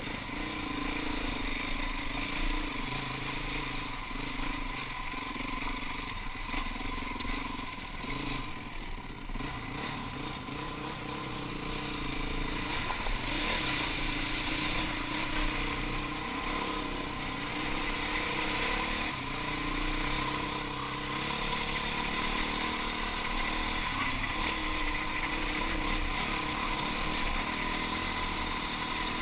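Enduro dirt bike engine running up close, its pitch rising and falling with the throttle over a rough track, with splashing as the bike runs through a flooded stretch about a third of the way in.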